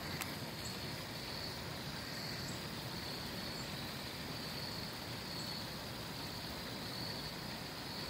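Steady low rumble of distant road traffic, with a few faint, short high chirps over it.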